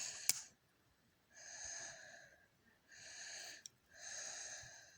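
A person's breathing close to the microphone: three slightly wheezy, hissing breaths of about a second each, evenly spaced.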